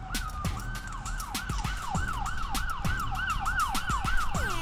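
Electronic emergency-vehicle siren in a fast yelp, its pitch sweeping up and down about three times a second, cutting off near the end.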